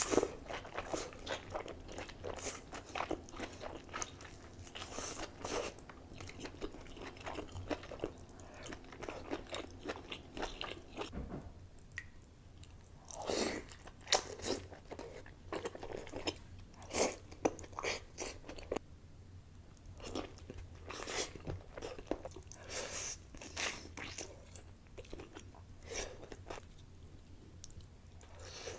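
Close-miked mukbang eating sounds from a seafood boil: irregular bites, wet chewing and crunching, with sharp clicks and crackles coming thick and fast, easing briefly about twelve seconds in.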